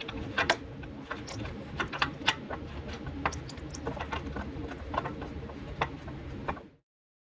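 Irregular metallic clinks and clicks of hand tools and bolts being worked while the rear cradle bolts of a C6 Corvette Z06 are started, over a steady low hum; the sound cuts off abruptly near the end.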